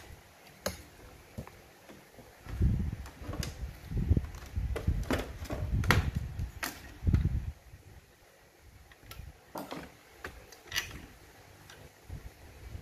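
Hands handling a cassette boombox's tape deck mechanism as it is worked loose in its plastic case. Scattered sharp clicks and knocks of plastic and metal parts, with dull bumps and rubbing for a few seconds in the middle.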